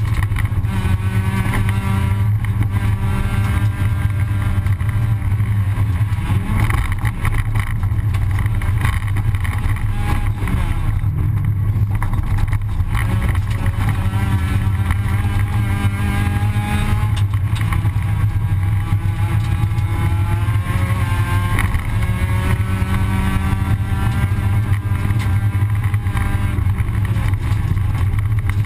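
Rally car engine heard from inside the cockpit at full speed, its pitch rising repeatedly under acceleration and dropping back at each gear change, over a steady low rumble.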